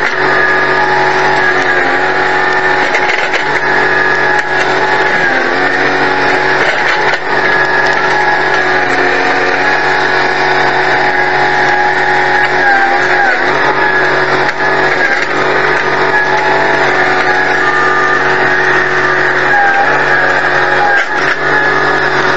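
Bobcat 553 skid-steer loader's engine running steadily under load, with a few slight shifts in pitch.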